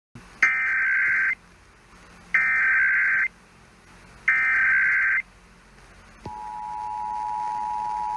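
Emergency Alert System header on FM radio: three bursts of warbling SAME data tones, each about a second long with a second's gap between them, then the steady two-tone EAS attention signal begins about six seconds in. This is the opening of the National Periodic Test alert.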